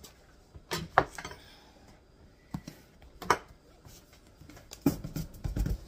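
Clunks and knocks of a skillet holding a bag of flour tortillas being moved and set down on a kitchen counter: a sharp knock about a second in, another just after three seconds, and a cluster of heavier thuds near the end.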